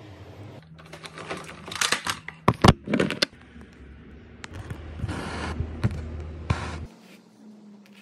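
Hands handling craft materials: a run of sharp clicks and knocks about two to three seconds in, then a longer rustling scrape.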